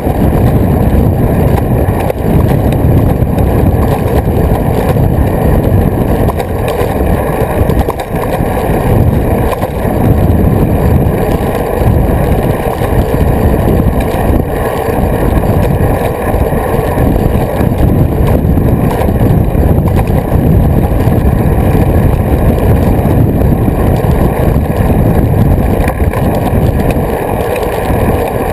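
Wind rushing over a bike-mounted camera's microphone, mixed with tyre and road rumble, as a road bike rides at speed: a loud, steady, low-heavy rushing noise that buffets unevenly.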